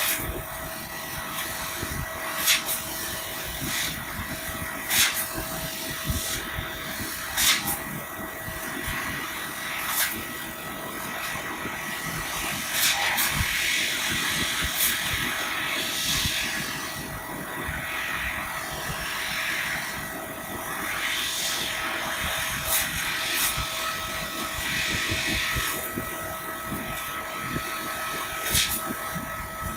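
EFC3015 fiber laser cutting machine cutting 2 mm aluminium sheet: a steady hiss and hum with a constant tone, broken by sharp clicks about every two and a half seconds.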